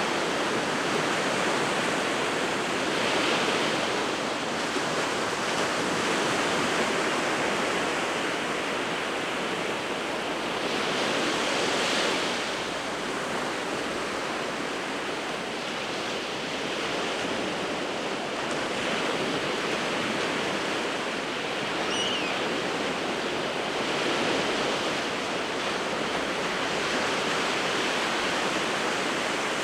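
Winter sea waves breaking and washing on the shore: a constant rushing surf that swells every few seconds, the loudest swell about twelve seconds in.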